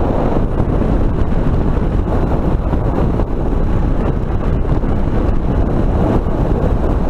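Wind rushing and buffeting over a helmet camera's built-in microphone at highway speed on a 2005 Suzuki DR650, a loud, steady rumble with the bike's single-cylinder engine running under it.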